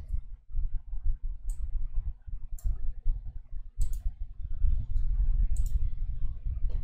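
Scattered sharp clicks at a computer, about six in all, as the Bible software is navigated, over a low steady rumble.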